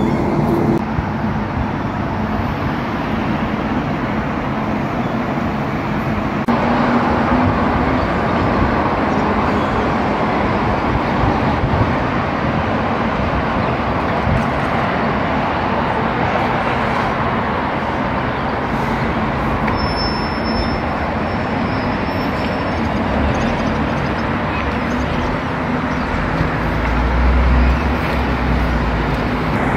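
Steady urban road traffic noise, with a deeper rumble swelling briefly near the end.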